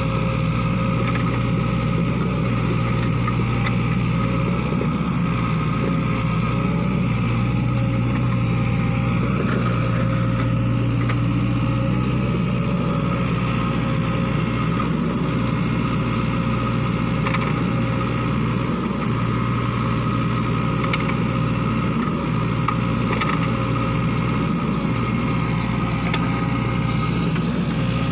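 Sany SY55C mini excavator's diesel engine running steadily at working speed, a constant low hum, with faint clicks now and then as the machine digs.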